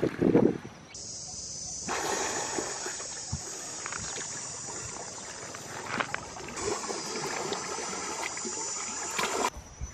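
Water splashing and sloshing as a person wades waist-deep through a river. There is a heavy splash at the very start, followed by a steady high hiss.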